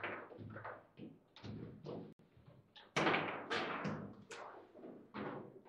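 Foosball table in play: the ball and the plastic figures on the rods knocking and thudding in a run of irregular sharp hits, loudest about three seconds in.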